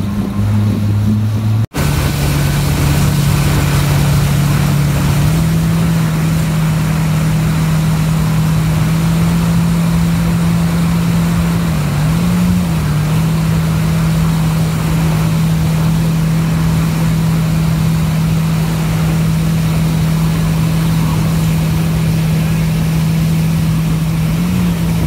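A jet ski's engine running at a steady pitch under a constant rush of wind and water noise. The sound cuts out for an instant about two seconds in, then carries on at a slightly different pitch, with a brief wobble in the note around the middle.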